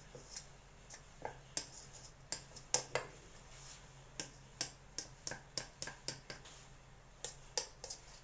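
Light, irregular clicks and taps of fingers and a knife tip against a stainless steel plate as the rolled dough is pressed and evened along the rim, about twenty in all, over a faint steady low hum.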